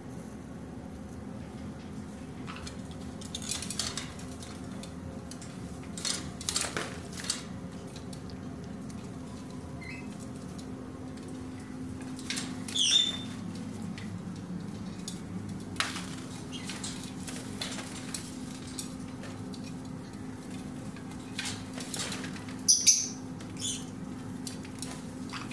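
Scattered clinks and clatters as a hawk-headed parrot moves about its cage and dishes, a few louder bunches of them, over a steady low hum.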